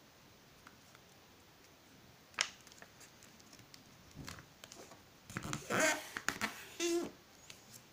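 A sheet of paper being folded in half and handled on a tabletop: a sharp tap about two and a half seconds in, then louder rustling and creasing of the paper near the end.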